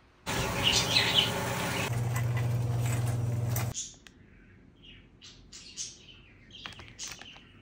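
A loud, noisy sound with a steady low hum in its second half stops after about three and a half seconds. Faint scattered bird chirps follow.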